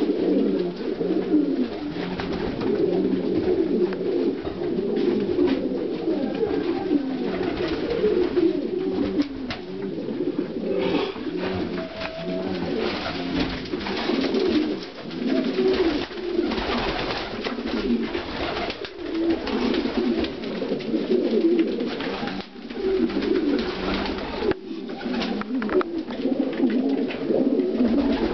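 A flock of domestic pigeons cooing, many birds at once, so the low coos overlap into a continuous chorus, with scattered small clicks and rustles among them.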